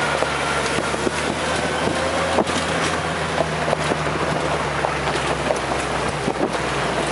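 Car driving along a road, heard inside the cabin: a steady low engine hum under a rush of tyre and wind noise, with scattered small clicks and rattles.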